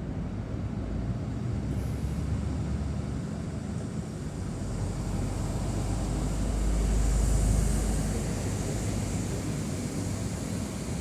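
Steady low engine rumble with a background hiss, swelling louder about six to eight seconds in and easing off again.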